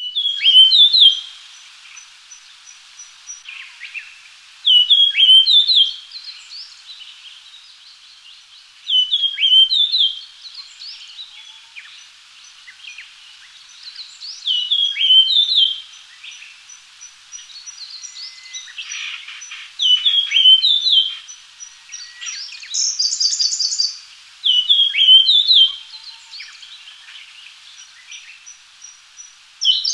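Japanese grosbeak singing a short whistled song phrase, repeated seven times about every five seconds. Faint series of thin high chirps sound between the phrases.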